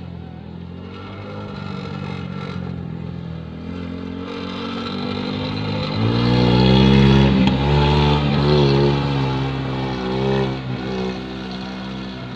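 Honda Supra motorcycle engine, a small single-cylinder four-stroke, powering a homemade minivan-bodied car and revving as it drives over dirt. It grows louder to a peak about six to eight seconds in, the engine note dipping and rising with the throttle, then eases off.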